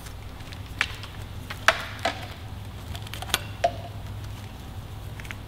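Hands pulling a motorcycle handlebar switch's wiring through its plastic harness loom: about five scattered light clicks and rustles over a steady low hum.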